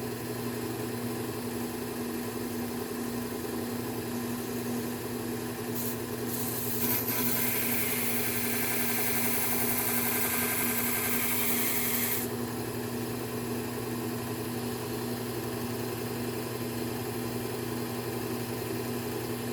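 Powered belt sharpener running steadily with a motor hum. For about five seconds in the middle, a scissor blade is ground against the moving abrasive belt, adding a hissing grind, while a very fine bevel is put on the scissors.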